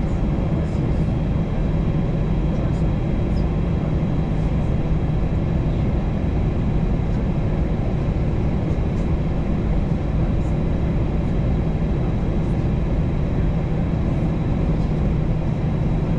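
Airbus A321 engine and cabin noise heard from inside the passenger cabin: a steady drone with a low hum underneath, holding level throughout.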